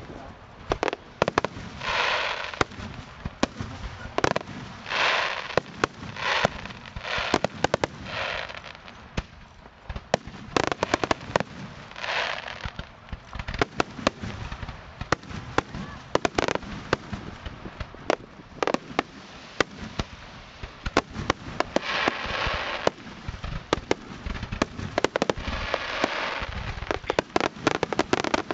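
Aerial firework shells going off one after another in quick succession: sharp bangs throughout, with repeated short bursts of dense crackling.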